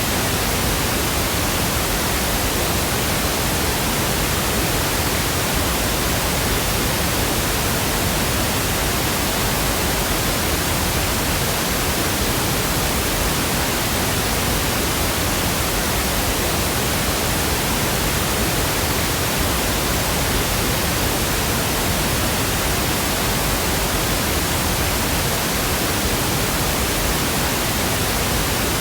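Steady synthetic pink noise: an even, unchanging hiss across all pitches.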